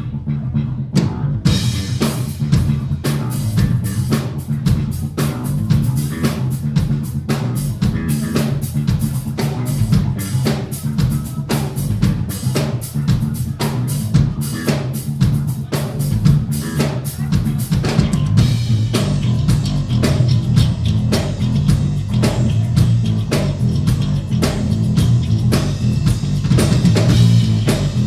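Electric bass guitar and drum kit playing live instrumental rock: a steady bass line, with the drums coming in about a second and a half in and then playing busily.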